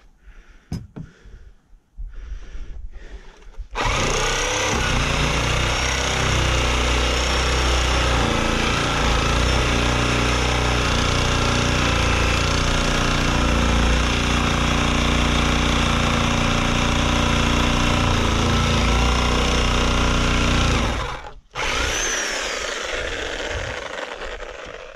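Corded Chicago Electric reciprocating saw running as it cuts into a nailed wooden pallet. It starts about four seconds in, runs steadily, stops briefly near the end, then runs again.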